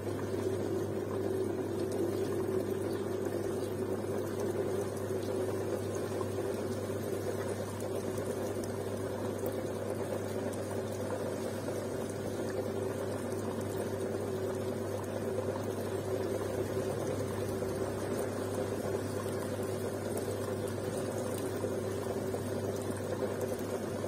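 Zanussi front-loading washing machine pausing between tumbles, drum still, giving a steady hum with water running through it.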